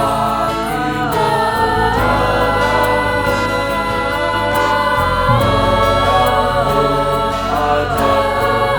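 School choir singing in Indonesian in several-part harmony: sustained chords that move every second or so.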